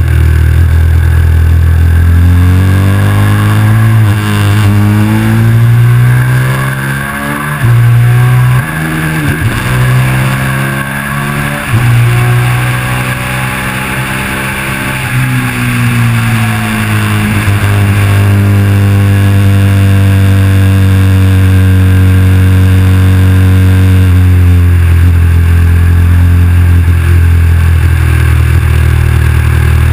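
KTM 990 SMR's V-twin engine heard from the bike at speed, over wind rush. It revs up and down with several quick gear changes in the first half, eases off for a few seconds, then holds steady revs for the rest.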